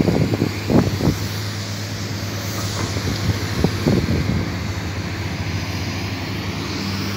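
Diesel engine of a Komatsu hydraulic excavator running steadily as a low hum. A few short thumps come in the first second and again about four seconds in.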